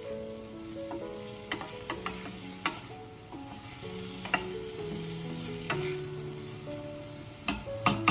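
Wooden spoon stirring plums and shallots frying gently in a stainless steel saucepan, with a light sizzle and several sharp knocks of the spoon against the pan, two close together near the end. Soft background music with held notes plays underneath.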